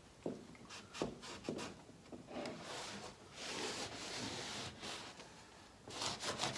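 A cloth rag rubbing back and forth over a wooden workbench top, wiping up excess glue, for about two seconds in the middle. A few light wooden knocks come before it and a quick run of clicks near the end.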